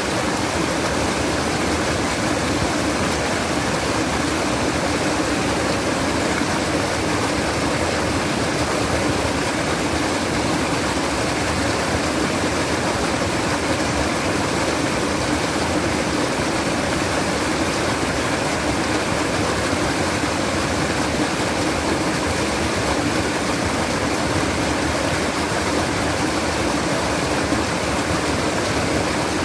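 Steady babbling water of a stream, running on without change.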